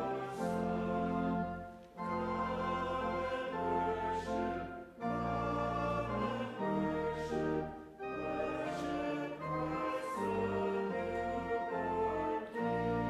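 Organ accompanying a congregation singing a hymn, in sustained chords with short breaths between phrases.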